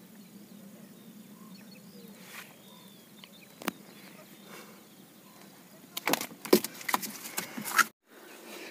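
Faint outdoor background, then about six seconds in a flurry of loud knocks and rustles for about two seconds from hands handling a freshly caught crucian carp, ending abruptly.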